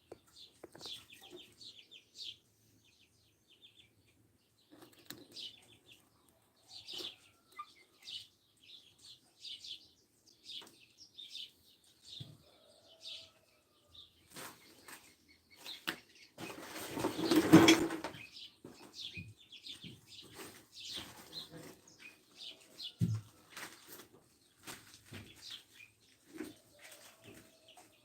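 Small birds chirping in short, repeated high calls, with a loud burst of rustling noise of about two seconds past the middle and a low thump a little after it.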